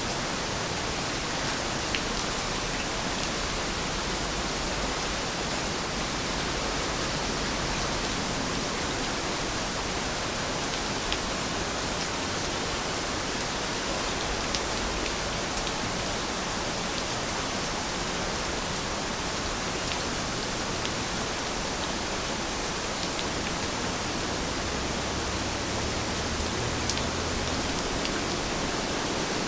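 Steady rain falling, an even hiss with occasional faint drop ticks.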